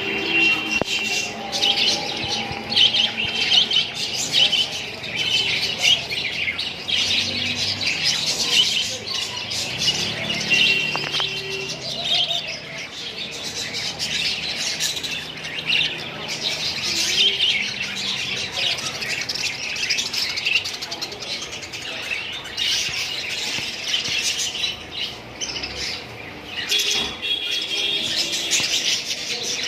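A group of lovebirds chirping and chattering without pause, a dense high-pitched twittering with a few brief held whistle notes.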